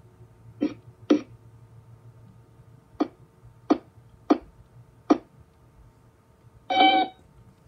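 A cartoon robot's beeping electronic voice: six short bleeps spaced unevenly, then a longer beep with several tones near the end.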